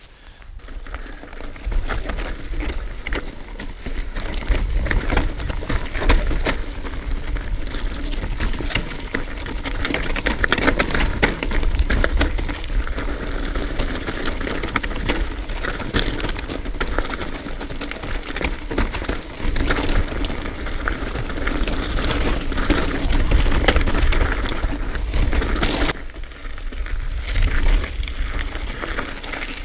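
Trek Remedy full-suspension mountain bike descending a loose, gravelly trail: tyres crunching over stones with constant rattling of the bike and a steady low rumble, easing off briefly near the end.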